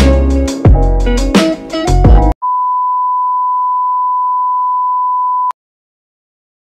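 Intro music with a heavy beat cuts off about two seconds in. It is replaced by a steady, high-pitched test-tone beep, the reference tone that goes with television colour bars, held for about three seconds before it stops abruptly.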